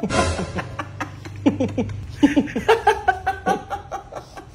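A man laughing hard in short, repeated bursts.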